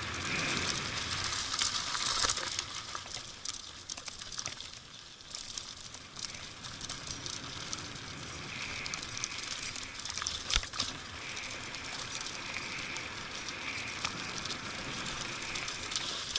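A mountain bike rolling fast downhill over loose gravel: the tyres crunch and the chain and frame rattle and clatter with every stone, with a sharp knock about ten and a half seconds in.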